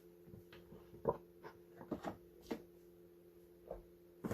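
Faint, light clicks and taps of packaging and parts being handled, about half a dozen scattered through, over a steady low hum.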